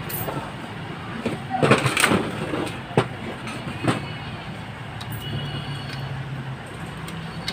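Metal automatic-transmission parts knocking and clicking as they are fitted during reassembly: a cluster of clanks about two seconds in, then two sharp clicks a second apart. All of it sits over a steady background rumble.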